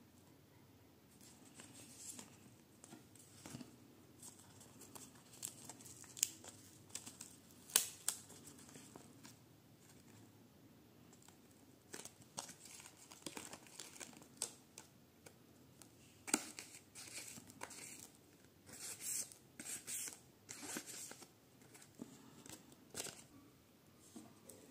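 Tape-covered paper envelopes and paper cutouts being handled: irregular, quiet rustling and crinkling, with a few sharp ticks and a busier run of crinkling about two-thirds of the way in.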